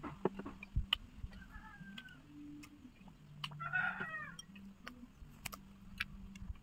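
Two short animal calls: a falling one about a second and a half in, and a louder one about four seconds in. Under them are scattered small clicks and a low, wavering hum.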